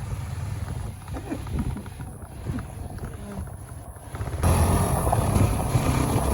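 Motorcycle engine running at low revs; about four seconds in, wind starts rushing over the microphone as the bike gets moving.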